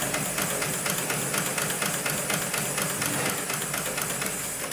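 Hightex GLK700-6040 automatic programmable pattern sewing machine running, its needle stitching at a rapid, steady rate.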